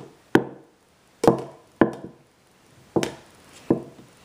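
A series of sharp knocks or taps, five in all at uneven gaps of half a second to a second, each ringing briefly.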